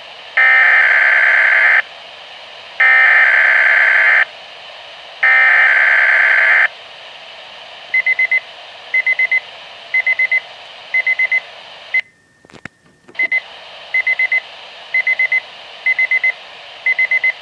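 Three Specific Area Message Encoding (SAME) digital header bursts open an emergency weather alert, each a harsh data screech about a second and a half long. They are followed by a weather radio's alert alarm beeping in quick groups of four, about one group a second, with a brief dropout about twelve seconds in.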